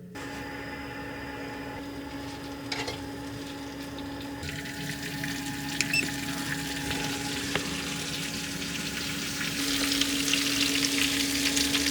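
Food sizzling and crackling in a hot pan, with a steady low hum underneath; the sizzle slowly grows louder.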